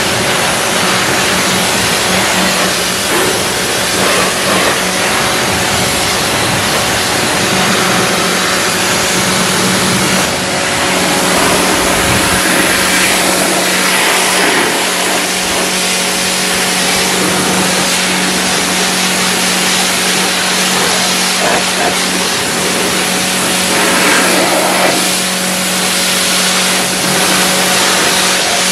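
Pressure washer running: the pump motor hums steadily under the hiss of the high-pressure water jet spraying across the car's bodywork and front wheel.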